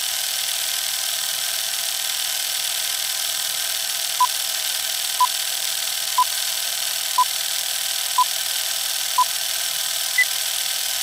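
Film-leader countdown sound effect: a steady projector-like whir and hiss, with a short beep on each number of the countdown, six beeps about a second apart, then one higher beep.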